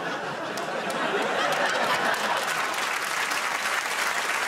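Studio audience applauding, a steady clatter of many hands clapping.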